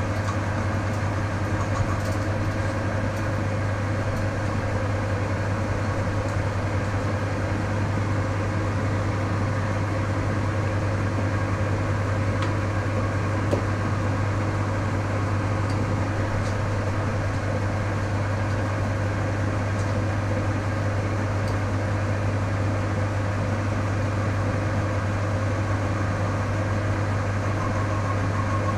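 Metal lathe running at a constant speed, its motor and gearbox giving a steady low hum as the four-jaw chuck spins.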